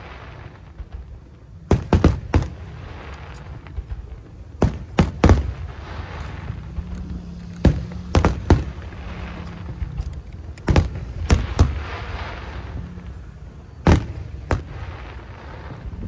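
Aerial fireworks shells bursting overhead, with sharp booms in clusters of one to three every few seconds. A crackling hiss from the bursting effects fills the gaps between them.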